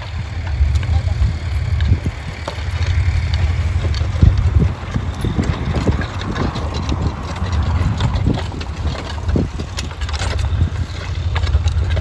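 Clydesdale horses' hoofbeats on soft ploughed soil as a team pulls a horse-drawn plough, with scattered knocks and clinks of harness chains and plough, over a steady low rumble.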